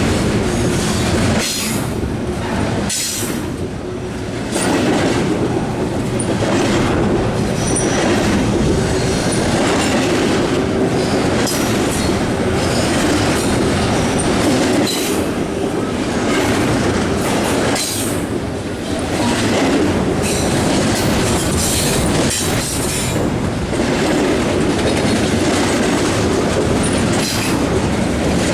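A Norfolk Southern intermodal freight train rolls steadily past: its double-stack container and trailer cars make a continuous clatter of steel wheels on rail, with repeated sharp clacks and some wheel squeal.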